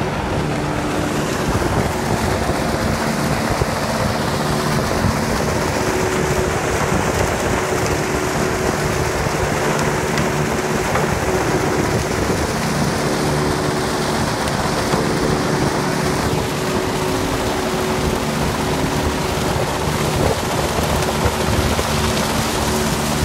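Sugar mill cane-handling machinery running: a cane carrier and feeder moving sugarcane, a steady loud industrial din with a constant low hum underneath.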